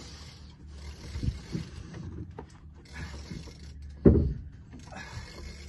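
Boat's engine running with a low steady hum under an intermittent hiss, broken by a few dull thumps; the loudest thump comes about four seconds in.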